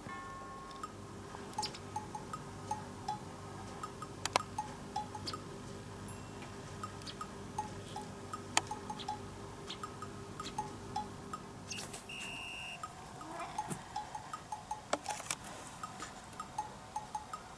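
Light, playful background music of short plinking bell-like notes over ticking percussion. A faint steady hum underneath stops about two-thirds of the way through.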